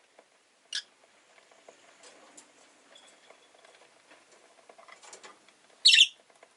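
Peach-faced lovebird giving two short, sharp, high chirps: one under a second in and a louder one near the end. Faint clicks and rustling come between them.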